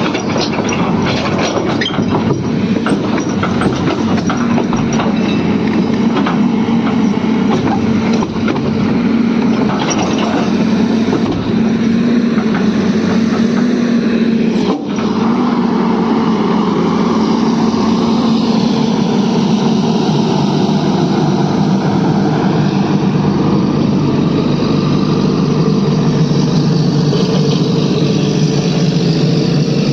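Diesel engine of a JCB excavator running steadily with a deep hum, with rattling clatter through the first ten seconds or so as it loads a tractor trailer.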